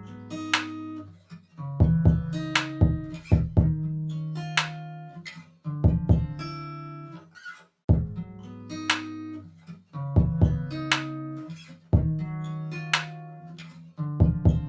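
Background music of plucked notes, with a short phrase that repeats about every two seconds.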